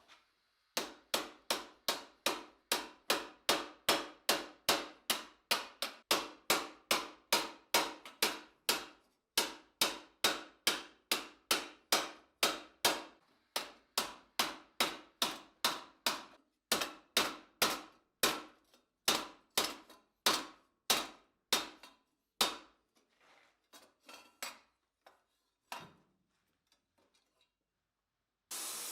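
Hammer blows on a steel armour plate as a gauntlet cuff is shaped: steady strikes, about two to three a second, each with a short metallic ring. About twenty-two seconds in they stop, and a few lighter, scattered taps follow.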